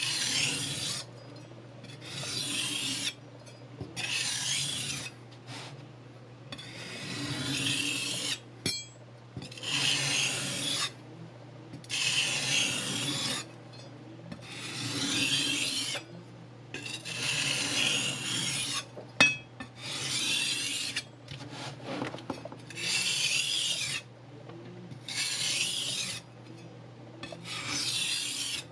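Kitchen knife blade scraped along sandpaper on a sharpening block, one hissing stroke about every two seconds, the edge being sharpened. A single sharp click about two-thirds through.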